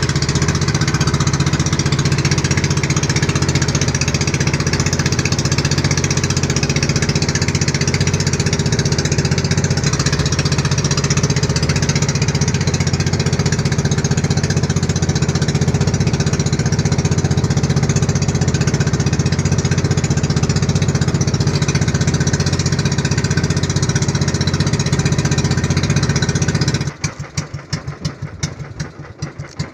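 Engine of a motorized outrigger boat running steadily at a constant speed, then cut off near the end, its last few strokes thudding as it winds down.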